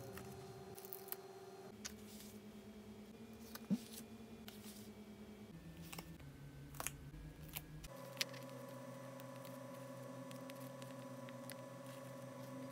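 Small paper stickers being peeled off a sticker sheet by fingertip and tweezers: faint crackles and sharp ticks of the stickers lifting from the backing, the sharpest about four seconds in. Faint steady tones run underneath and shift in pitch a few times.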